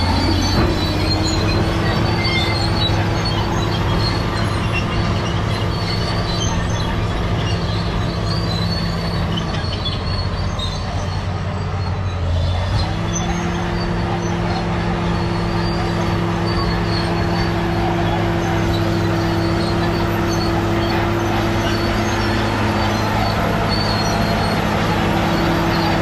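Caterpillar D7G crawler bulldozer at work, its diesel engine running steadily under load. The engine note sags and eases about ten seconds in, then picks up again a couple of seconds later.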